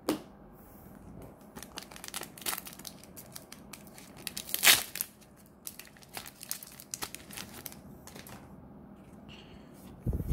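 Trading-card booster pack wrapper being torn open by hand: a run of crinkles and crackles, with one loud rip about halfway through.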